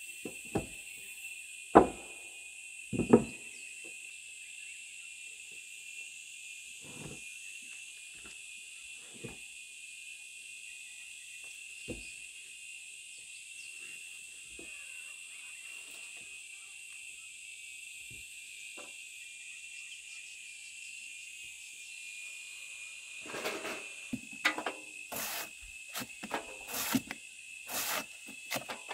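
Steady high insect chirring, like crickets or cicadas, under scattered sharp knocks. The knocks become a rapid, irregular run of knocking and clatter in the last few seconds.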